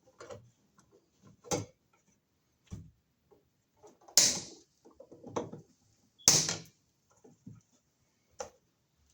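Wire cutters snipping off the corroded ends of a receptacle's copper wires: two sharp snips about two seconds apart in the middle, amid lighter clicks and taps of handling.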